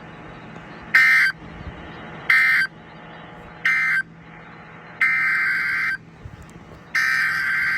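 Emergency Alert System SAME digital data bursts from a NOAA Weather Radio broadcast: three short bursts of warbling two-tone data marking the end of the previous message, then two longer bursts, the header of the next alert.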